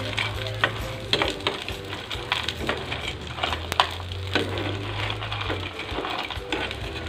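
Metal spatula scraping and knocking against a nonstick frying pan as fried tofu cubes are stirred and tossed, in irregular clicks and scrapes over a light sizzle of oil.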